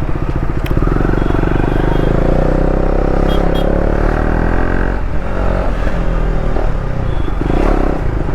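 KTM 390 Duke's single-cylinder engine running under way, its pitch climbing as the bike accelerates and dropping briefly about five seconds in before climbing again.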